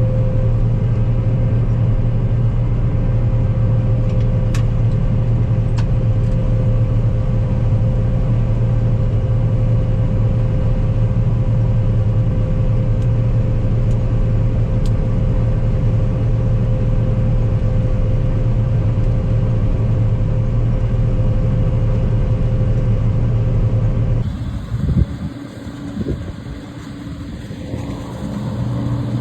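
Combine harvester's diesel engine running steadily while the machine is driven on the road, a constant low drone with a steady hum over it. About 24 s in it changes abruptly to a quieter, uneven rumble with a few knocks.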